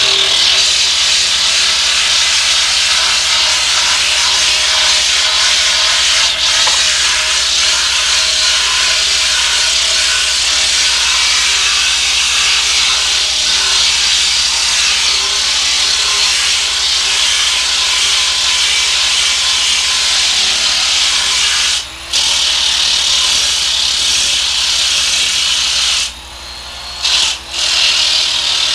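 Small air-powered disc sander grinding along the edge of a curved wooden boat frame, running steadily with a high hissing sound. It stops briefly about three-quarters of the way through and twice more near the end.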